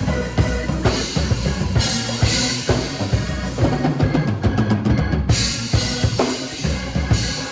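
Drum kit played in a jam: a busy groove of kick, snare and cymbals, with a quick run of even strokes about two-thirds through that ends on a cymbal crash.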